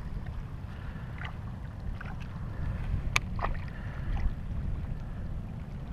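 Steady low wind rumble on the microphone, with a few sharp clicks, the clearest about three seconds in.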